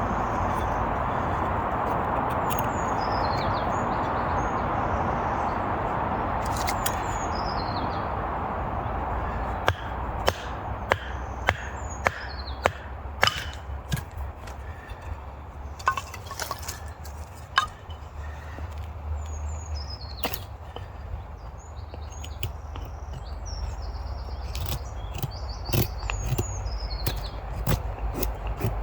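A steady rushing noise, then from about ten seconds in a run of sharp knocks and clicks, roughly two a second, as a knife works a stick of firewood. Small birds chirp briefly now and then.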